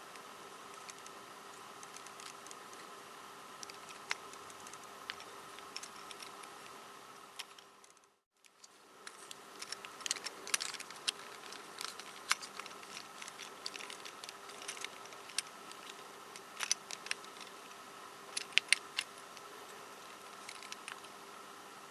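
Small plastic pieces of a MoYu 13x13x13 puzzle cube clicking and tapping as the cube is taken apart and handled, over a steady background hum. The sound drops out briefly about eight seconds in, and the clicks come thicker after it.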